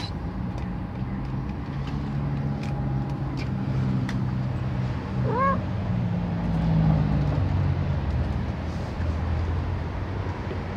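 A tabby cat gives one short meow about halfway through, over the steady low drone of a running vehicle engine that drops a little in pitch later on.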